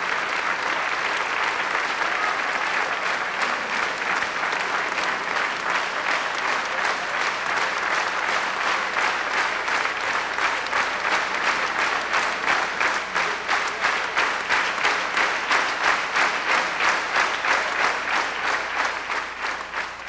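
Theatre audience applauding a prize winner, the clapping falling into a steady rhythmic clap in unison about halfway through, roughly two to three claps a second, then dying away at the end.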